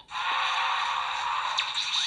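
Electronic sound effect from a Daikaiten Cannon toy's small speaker: a rushing noise that starts abruptly after a moment's gap and holds steady.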